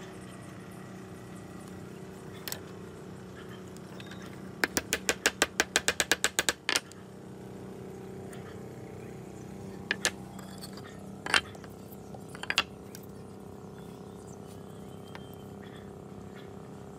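A steady low hum, broken a little under five seconds in by a quick run of about fourteen sharp clicks over two seconds, then a few single sharp clicks.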